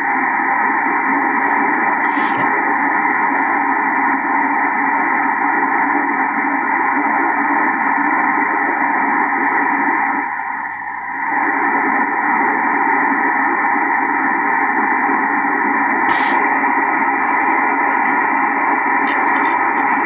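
Steady static hiss from a vintage Drake 2-B ham radio receiver's speaker, cut off sharply above the voice range by its filters, with a brief dip about halfway through. The receiver has just been restored with new filter capacitors.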